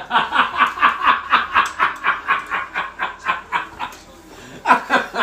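Hearty laughter in quick rhythmic pulses, about five a second, that fades after about four seconds and flares once more near the end.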